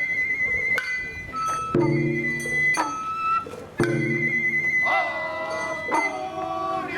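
Sawara-bayashi festival music: a high bamboo flute melody with held notes over sharp drum and gong strikes about once a second.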